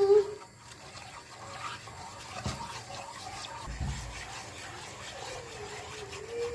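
A spatula stirring thin tomato sauce in a nonstick frying pan: liquid swishing, with a few light scrapes and taps. A high wavering whine ends about half a second in, and a fainter one rises near the end.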